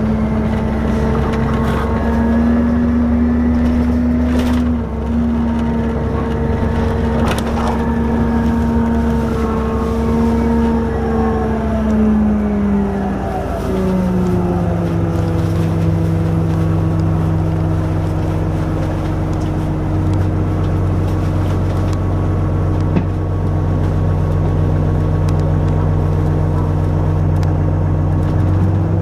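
Orion VII diesel-electric hybrid transit bus running, heard on board: a steady whine over a low drone. About halfway through, the whine drops in pitch and holds lower, with a few faint clicks and rattles along the way.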